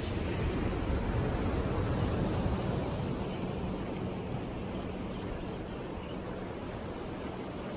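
Steady outdoor noise of wind and ocean surf, with a faint steady low hum underneath.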